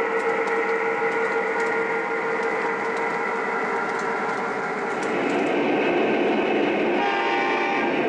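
Electronic sound-system horn of an O-gauge model diesel locomotive, a Texas Special F-unit, holding a long chord that fades out about five seconds in, over the rumble of the train rolling on the track. A fresh horn chord starts near the end.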